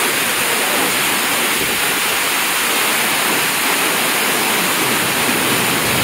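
A large waterfall in heavy flow, a broad sheet of white water pouring down a stepped rock face: a loud, steady rushing roar of water.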